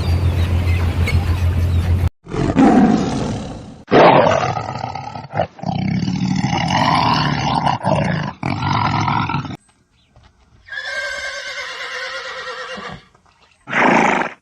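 A run of separate animal calls edited back to back, including roar-like calls, with abrupt cuts and short gaps between clips. The first two seconds are a steady noisy hum left over from the previous clip.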